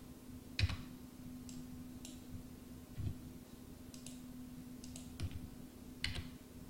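Computer mouse clicking several times at uneven intervals as edges are picked one by one, over a faint steady hum.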